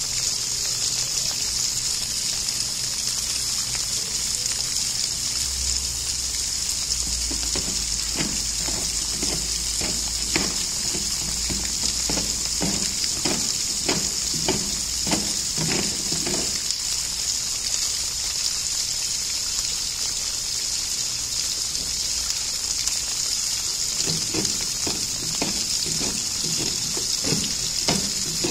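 Steady rushing hiss of running water, with two spells of short knocks and scrapes, about two a second, as a polar bear works at a plastic polyethylene tank with its head and paws.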